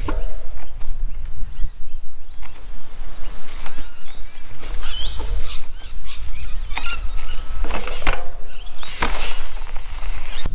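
Trials bike hopping on a wooden log rail: repeated knocks and thuds of the tyres landing on the wood and ground, over a steady low rumble, with a few short bird chirps.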